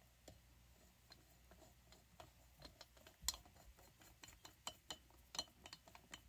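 Faint, irregular small metal clicks and taps, coming more often from about two seconds in: cylinder screws and a Torx screwdriver being fitted to a chainsaw cylinder.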